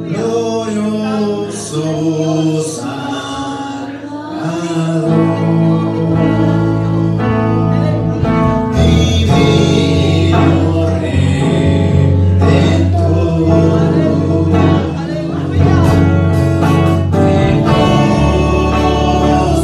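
A girl and a man singing a worship song into microphones over instrumental accompaniment with sustained bass notes.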